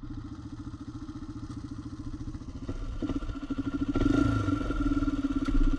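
Sport quad ATV engine running with a fast, even pulse at low speed, getting louder in steps about three and four seconds in as the throttle opens.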